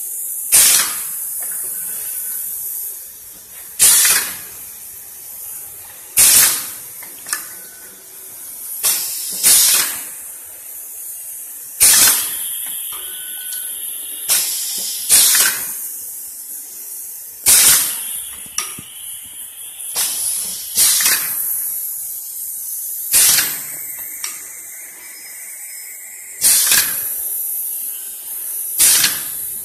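Automatic rotary tube filling and sealing machine running: a sharp pneumatic hiss about every two and a half to three seconds, eleven in all, over a steady high hiss.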